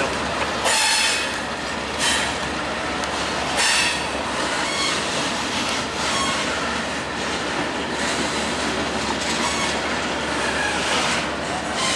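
Freight train cars rolling past on steel rails, a steady rumble of wheels on track with brief high wheel squeals breaking in several times.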